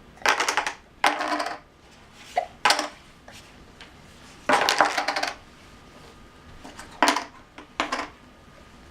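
Small hard objects rattling and clinking in about six short bursts.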